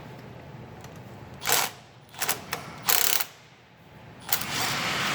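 Ratchet with a 13 mm socket turning a nut off an A/C compressor stud: three short bursts, then a longer steady run from about four seconds in.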